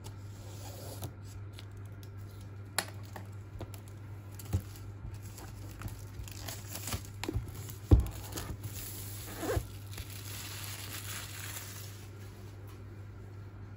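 Box cutter slitting the plastic shrink-wrap on a new iPad box, then the film being torn and peeled off, crinkling. Several sharp knocks and clicks from handling the box and cutter, the loudest about 8 s in, over a steady low hum.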